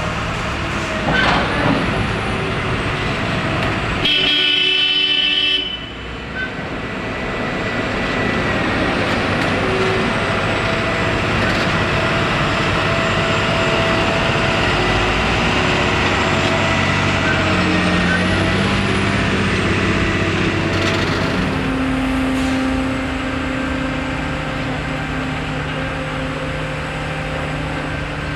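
Diesel engine of a Kirow rail crane running steadily at a track-laying worksite, with a loud horn blast lasting about a second and a half some four seconds in. The engine note shifts lower about three-quarters of the way through.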